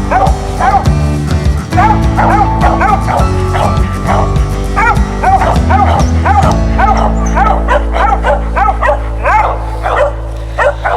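Squirrel-hunting dogs barking and yipping in quick succession, about two to three barks a second, over background music with sustained low notes that shift about two-thirds of the way through.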